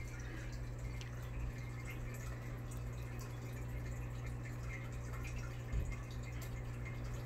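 Aquarium air stone bubbling: small drip-like pops of bubbles breaking at the water surface over a steady low hum. A soft knock about six seconds in.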